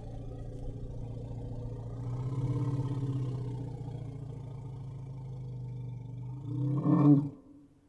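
Elephant calling: a long, low rumbling call that builds slowly, then rises in pitch and swells to its loudest about seven seconds in before stopping abruptly.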